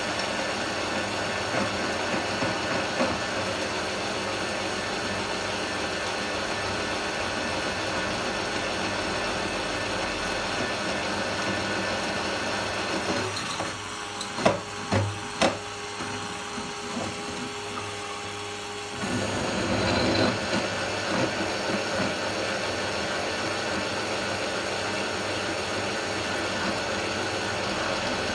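Benchtop drill press cutting into a metal plate, a steady drilling whir. About halfway the cutting noise drops away for several seconds with a few sharp knocks, then drilling resumes and carries on steadily.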